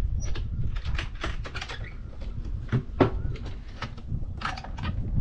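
Irregular clicks and knocks of the latches and hinged lid of a fibreglass deck console being handled and opened, over wind rumble on the microphone.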